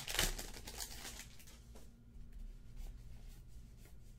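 Crinkling rustle of a trading-card pack wrapper in the first half-second, then faint slides and light ticks of baseball cards being handled and flipped through.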